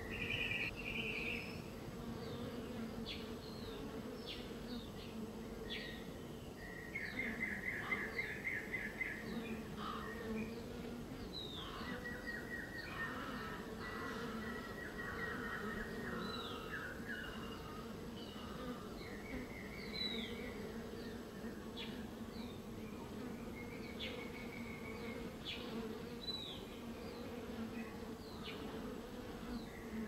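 Honeybees buzzing around flowers in a steady hum, with songbirds chirping and trilling throughout. The loudest trills come about seven to nine seconds in and again a few seconds later.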